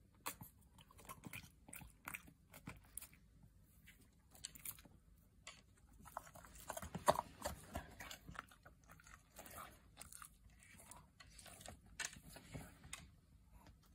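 A dog chewing a freeze-dried venison treat, with irregular crisp crunches that are loudest about seven seconds in.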